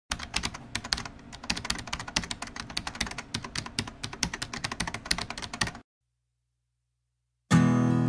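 Rapid computer-keyboard typing clicks, about ten a second, that stop just under six seconds in. After a second and a half of silence, strummed acoustic guitar music starts near the end.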